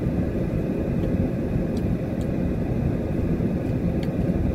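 Steady low rumble of a parked car running, heard inside its cabin, with a few faint ticks over it.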